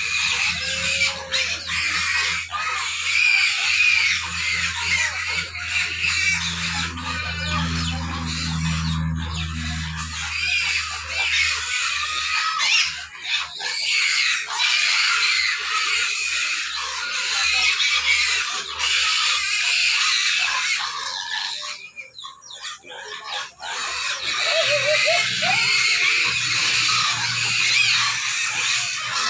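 Pigs squealing and screaming almost without pause, the noise hungry pigs make when waiting to be fed. A low steady hum runs under it for about the first twelve seconds, and the squealing breaks off briefly a little past two-thirds of the way.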